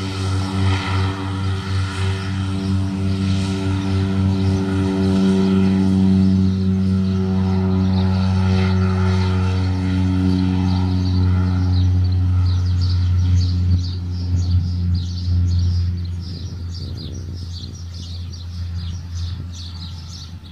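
Cessna 208B Grand Caravan's single Pratt & Whitney PT6A turboprop at takeoff power: a steady low propeller drone. It grows louder over the first few seconds, then fades away in the last few seconds as the plane climbs out.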